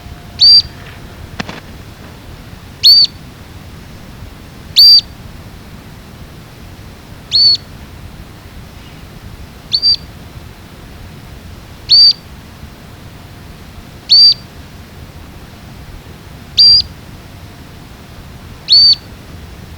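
Straight-billed earthcreeper screeching at an intruder: a short, high call that drops in pitch, repeated nine times at about one every two to two and a half seconds.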